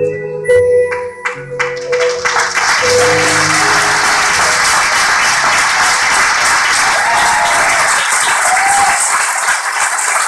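Backing music with held keyboard chords fades out in the first few seconds as audience applause starts and then carries on steadily.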